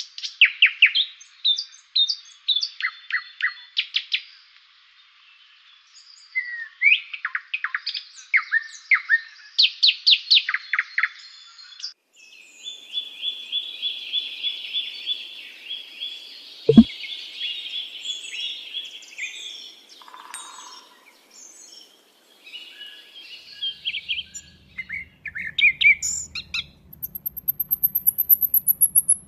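Nightingale singing: quick runs of sharp whistled notes and chirps, with a long rapid trill in the middle. A single sharp click sounds partway through.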